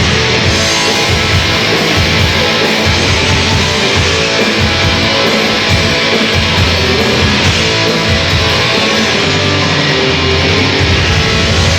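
Live heavy metal band playing loud, with electric guitars over a steady low-end pulse and no singing.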